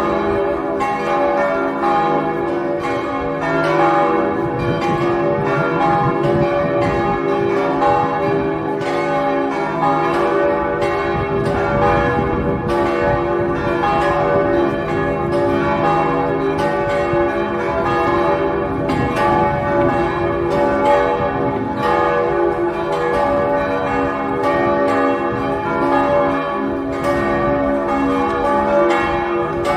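Church bells ringing on without a break, several bells struck in quick succession, each stroke sounding over the ringing of the ones before.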